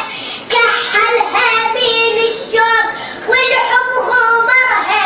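A high voice chanting a devotional Arabic poem in the radood style, with held, wavering notes and short breaks between phrases, one about half a second in and one about three seconds in.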